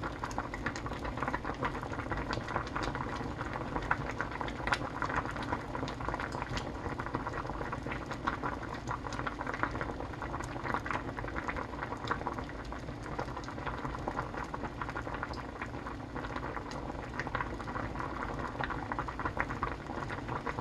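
Pot of cheonggukjang (Korean fermented soybean stew) bubbling at a steady boil, the thick stew popping with many small irregular pops.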